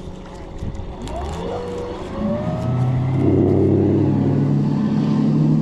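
Outboard motor on a nearby fishing boat throttling up and pulling away at speed: the engine pitch rises about a second in, then settles into a loud steady drone from about three seconds in.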